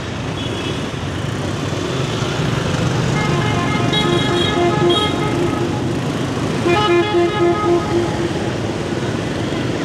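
Busy scooter and motorbike traffic running past, with vehicle horns tooting in short beeps: a few toots around the middle, then a quick string of about five beeps.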